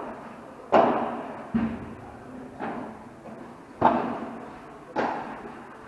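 Padel ball being hit back and forth in a rally: five sharp hits about a second apart, each with a short echoing tail.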